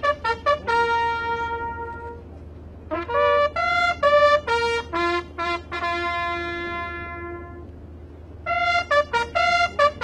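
Ceremonial bugle call on a single brass horn: phrases of short notes that settle into long held notes, with two brief pauses. A steady low hum runs underneath.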